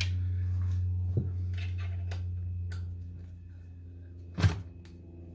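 Light metal clicks and knocks as a hex key is worked on the mounting screws of a DRO scale on a lathe bed, with one sharper clunk about four and a half seconds in. A steady low hum runs underneath and fades after about three seconds.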